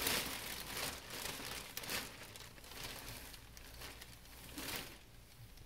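Plastic contractor trash bag and the clothes inside it rustling and crinkling as gloved hands dig through them, busiest over the first two seconds and then quieter and more scattered.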